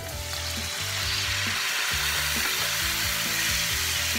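Broth being poured into a hot frying pan of browned pork belly and garlic, sizzling hard as the liquid hits the hot oil. The sizzle swells during the first second and then holds steady.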